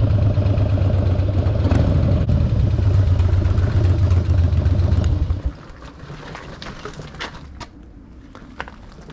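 Harley-Davidson Dyna's Twin Cam 88 V-twin running steadily through its Bassani exhaust, then stopping abruptly about five and a half seconds in. A few light clicks follow near the end.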